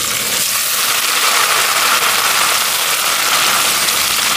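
Marinated beef slices sizzling in hot desi ghee with fried onions in a pressure cooker: a loud, steady hiss.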